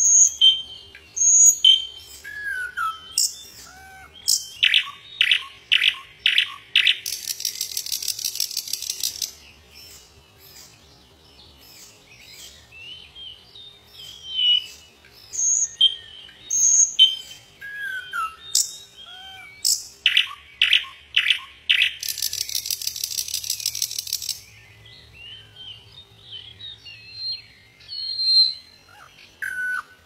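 Common nightingale singing: whistled and slurred notes lead into a run of loud repeated strokes that ends in a rapid, high trill. The pattern comes twice, with a short lull between, then a few more single notes near the end.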